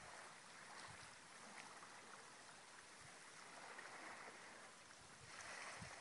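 Faint small waves lapping on a rocky shore, a soft wash that swells and fades, with a few soft low thumps.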